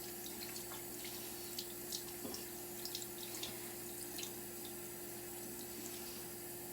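Cold tap water running steadily into a sink as makeup brushes are rinsed, with light splashes and clicks through the middle and a faint steady hum underneath.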